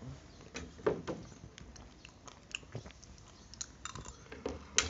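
Chewing and mouth sounds of people eating noodles from spoons, with scattered short smacks and clicks, the sharpest about a second in and just before the end.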